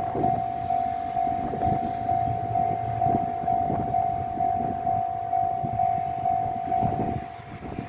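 Japanese electronic level-crossing alarm ringing: a single high tone pulsing about twice a second, warning of a tram. Under it, a Tosaden tram passes over the crossing with uneven knocks and rumble from its wheels, which fade near the end.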